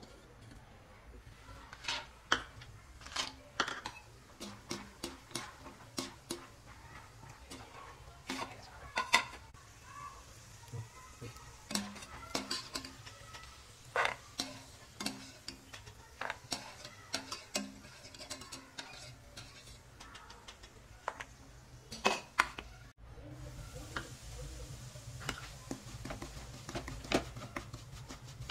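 Metal kitchen utensils clinking and tapping against a non-stick wok while cashews and almonds are fried and scooped out with a wire skimmer. Near the end there is a steadier scraping as dry semolina is stirred in the wok with a silicone spatula.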